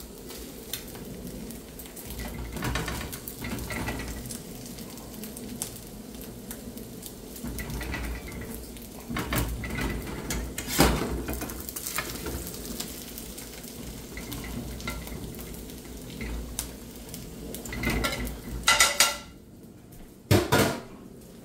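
Slotted metal spatula scraping and tapping against a skillet while bacon sizzles quietly in the pan with the burner turned off, with a few louder clanks near the end.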